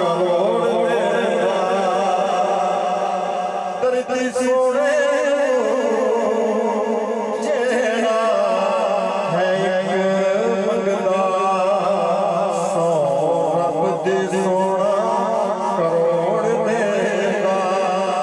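A man's voice singing a naat in long, wavering, melismatic held lines into a microphone and over a PA.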